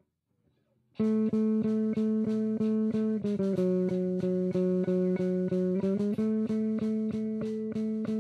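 Amplified plucked string instrument, guitar or bass, starting about a second in with fast repeated picking of the same notes, about six a second. The held pitch steps down and back up a couple of times.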